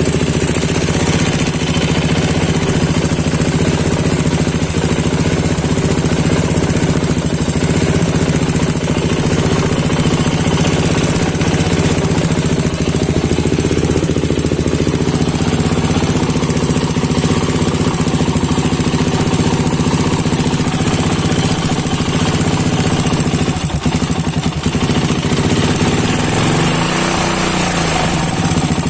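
Suzuki Satria FU 150 carburettor single-cylinder engine idling steadily with a rough, strange-sounding running noise, the kind the uploader puts down to an aging engine. Near the end the pitch dips briefly.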